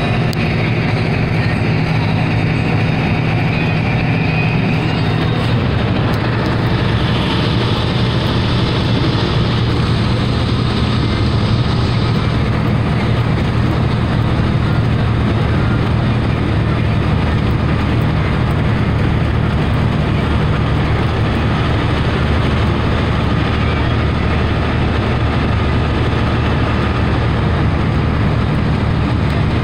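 Truck engine droning steadily with tyre and road noise, heard from inside the cab at highway speed; the engine note changes about five seconds in.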